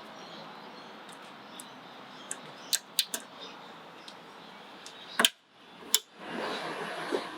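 Small plastic clicks and handling sounds from the door mirror's wiring plug being unplugged inside the door, with a sharper click about five seconds in and a rustling noise near the end.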